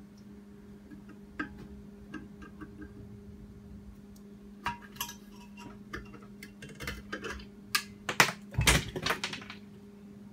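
Hand tools clinking and scraping on the metal parts of an LG top-load washer clutch assembly as it is worked apart. The clinks are sparse at first, grow busier about halfway, and come as a louder cluster of clanks near the end, over a steady low hum.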